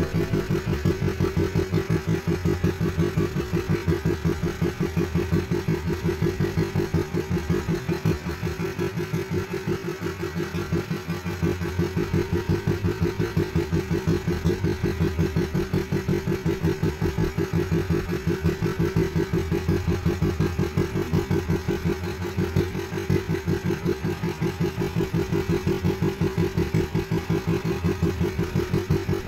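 Small fishing boat's engine running steadily, with a fast, even throbbing beat.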